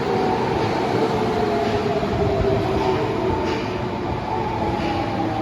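Subway train's inverter-driven traction motors whining over wheel and running noise, several tones sliding slowly down in pitch as the train slows.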